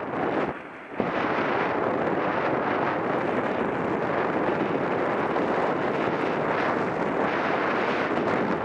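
Wind rushing over a helmet-mounted action camera's microphone as a mountain bike rolls fast down a dirt track. The noise is steady, with a brief drop just under a second in.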